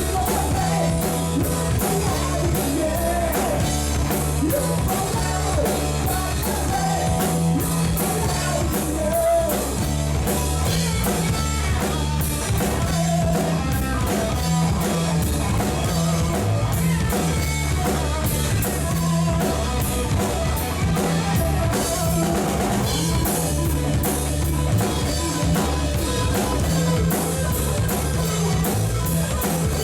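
Rock music with drum kit, bass and electric guitar, with a steady beat and singing over it.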